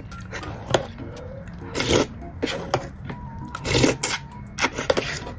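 Close-miked eating sounds: a series of short, wet slurps and mouth smacks, roughly one every half second to a second, as creamy, spicy instant noodles and their thick sauce are eaten.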